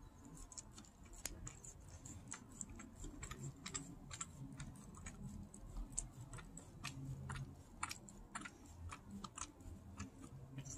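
Maltese dog licking and smacking peanut butter: a run of quiet, irregular clicks, several a second.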